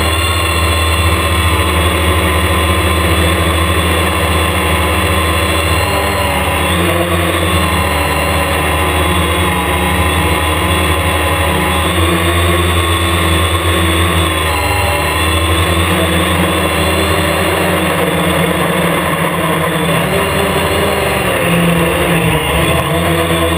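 Hexacopter's six electric motors and propellers whining, heard up close from the airframe: several steady tones that waver slightly together in pitch as the motors adjust during the climb.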